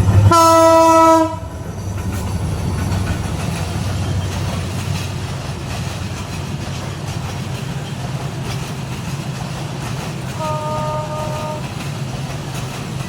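Express train's locomotive horn sounding loudly for about a second as the train runs through the station without stopping, followed by the steady rumble of the passing train; a second, shorter and fainter horn sounds near the end.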